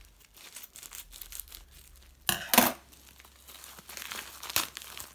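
Scissors cutting open a white mailer packet and the packaging crinkling as it is handled, with a loud rip about two and a half seconds in and a sharp crackle near the end.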